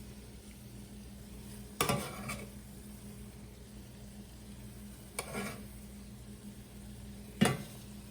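A kitchen utensil knocks and clatters against cookware three times while food is served, each knock with a brief ringing tail. The last knock is the loudest.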